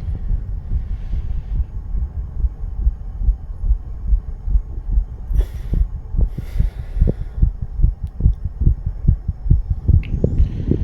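A man's heartbeat, fast, recorded close up: a steady run of low paired thumps.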